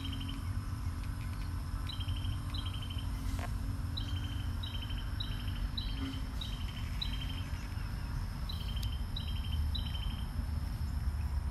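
A small creature outside calls over and over, each call a short high chirp followed by a quick stutter, repeating about every half second in runs with brief pauses, over a steady low rumble.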